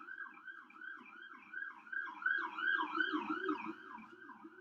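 An emergency vehicle siren yelping: a fast repeating falling wail, about three sweeps a second, fading toward the end.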